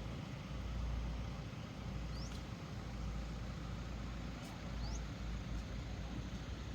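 Steady low rumble of a car on the road, with three brief high rising chirps over it.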